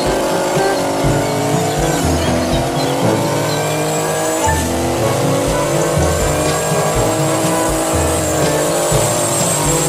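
Diesel school bus doing a burnout: the engine held at high revs, its pitch sagging and climbing again, over the steady squeal and hiss of the spinning rear tyres.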